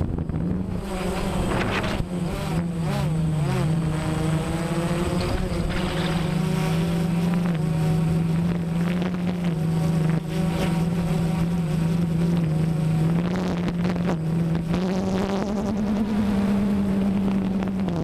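Camera drone's motors and propellers, a steady buzzing hum whose pitch wavers and shifts as the aircraft manoeuvres, rising briefly near the end.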